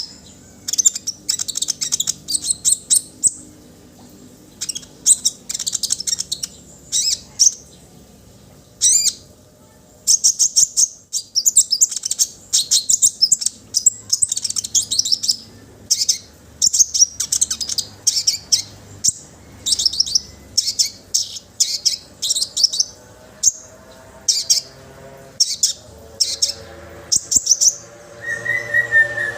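Konin songbird singing: rapid, high-pitched chirping phrases repeated in short bursts, with brief pauses between them. Near the end a steadier, lower tone joins in.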